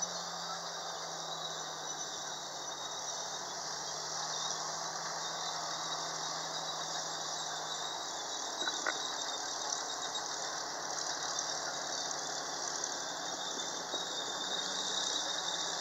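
Panther tank on the move: a steady squeal and rattle from its tracks and running gear over a low engine note, which fades out about eight seconds in.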